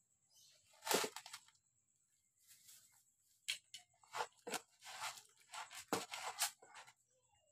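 Cats eating dry kibble from a metal bowl: irregular crunching and chewing, with the loudest crunch about a second in and a run of crunches in the second half.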